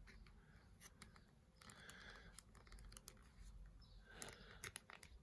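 Faint scattered clicks and rubbing of hard plastic as a clear plastic display base is worked onto the foot pegs of a small PVC figure.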